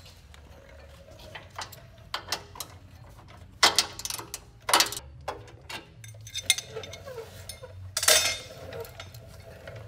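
A 3/8 ratchet and 10 mm socket undoing the steel exhaust-bracket bolts on a UTV: irregular metal clicks and clinks of the tools on the bolts and brackets, with a few sharper clanks about four, five and eight seconds in.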